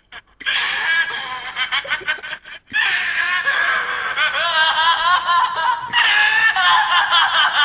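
A man's loud, high-pitched, wavering laughter-like cackling, breaking off briefly a little under three seconds in before carrying on.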